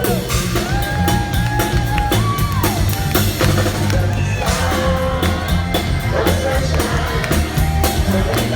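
Live band music with a steady drum-kit beat, heavy bass and sung vocal lines.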